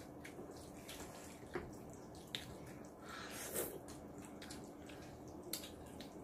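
Faint wet eating sounds of jjajangmyeon noodles being slurped and chewed, with scattered light clicks of chopsticks against the bowls and a longer slurp about three and a half seconds in.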